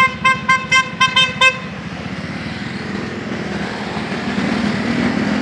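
A motorcycle horn tooting rapidly, about six short toots at roughly four a second, stopping after about a second and a half. It is followed by steady riding noise of engine and wind that slowly grows louder.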